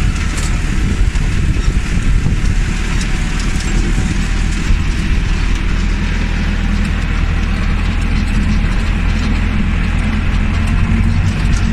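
Tractor engine running steadily while pulling a disc harrow through the field, with a metallic clatter from the discs and frame.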